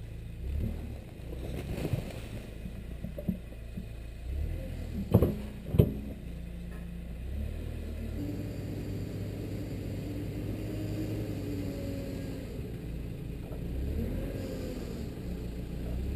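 Kubota U25 mini excavator's diesel engine running steadily as it dumps soil, with two sharp clanks about half a second apart some five seconds in. In the second half a faint wavering tone rises and falls over the engine note.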